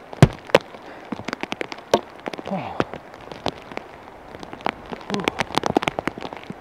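Heavy rain drops striking the camera and microphone: irregular sharp ticks and taps, with a louder knock about a quarter of a second in.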